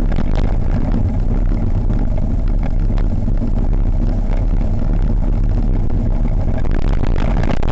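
Engineless gravity soapbox cart coasting and picking up speed down a tarmac road: a loud, steady rumble of its wheels on the asphalt, with short knocks and rattles from the cart over the bumps.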